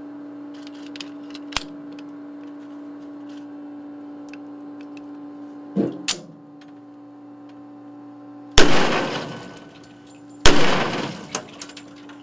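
Two pistol shots fired through the port into a stainless-steel ballistics water tank, about two seconds apart in the second half, each a sharp bang with a ringing tail that dies away over about a second. A steady hum runs underneath, with a couple of small clicks just before the shots.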